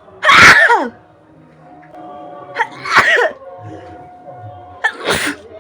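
A woman sneezing three times, each a short voiced burst falling in pitch. The first, about a quarter second in, is the loudest; the others come near the middle and near the end.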